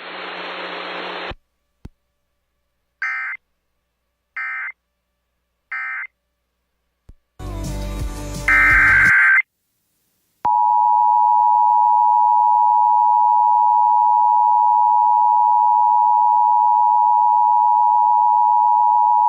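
Emergency Alert System data tones: three short end-of-message bursts about a second and a half apart, then a brief burst of noisy data, followed by the EAS two-tone attention signal (853 and 960 Hz) held steady for about nine seconds.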